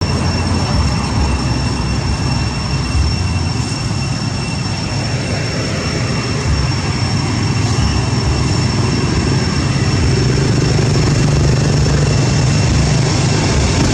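Steady, loud rumbling noise that wavers in the low end, with a constant high-pitched whine over it.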